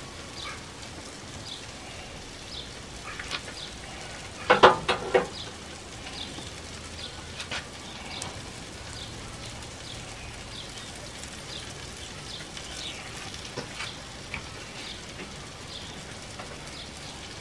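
Green asparagus and peppers sizzling steadily on a gas grill's griddle plate, with scattered small pops and crackles. A brief louder noise comes about four and a half seconds in.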